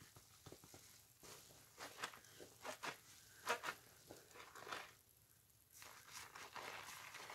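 Wet sponges soaked with pine cleaner being squeezed: quiet, irregular squishes and small clicks from the suds.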